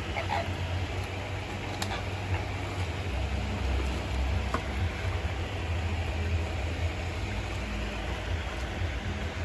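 Steady low rumble and hiss of outdoor background noise, with a brief honking call from the flamingo flock at the very start.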